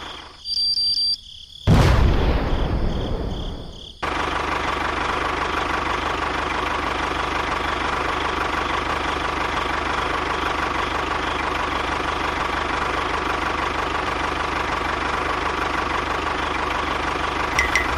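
A loud thump about two seconds in that dies away, then an engine running steadily at an even pitch.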